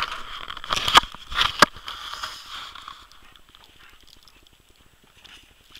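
Footsteps crunching and rustling in deep fresh snow, with a couple of sharp knocks about a second in. It fades to faint fine crackling after about three seconds.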